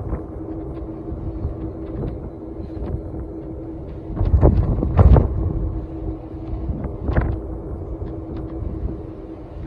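Wind buffeting the microphone on a cruise ship's high balcony, gusting harder about four to five seconds in, over a steady low hum from the ship's machinery as it docks.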